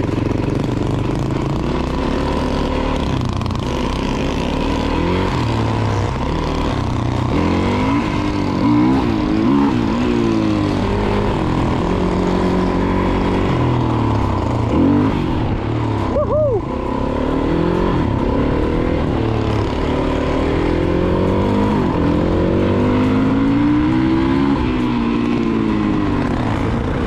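Yamaha dirt bike engine revving up and down under hard acceleration as the bike is ridden, the pitch rising and falling again and again; about sixteen seconds in it briefly drops away before picking up again.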